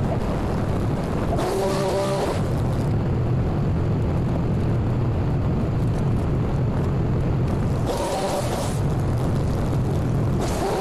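Small petrol engine of gas-powered landscaping equipment running steadily, with a higher-pitched, brighter surge about a second and a half in and again about eight seconds in.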